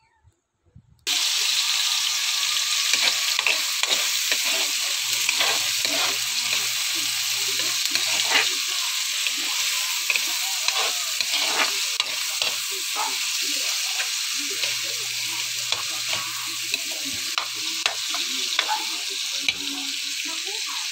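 Chopped onion, garlic and bell peppers sizzling in hot oil in a wok, with many short scrapes and taps of the spatula against the pan as they are stirred. The frying starts suddenly about a second in.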